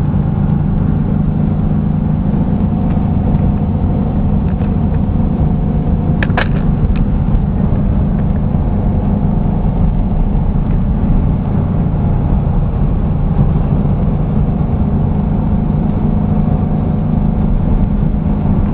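Air-cooled flat-four engine of a VW Baja Bug running at a steady cruise, a low, even drone heard from inside the car as it drives along a dirt road. A couple of sharp knocks sound about six seconds in.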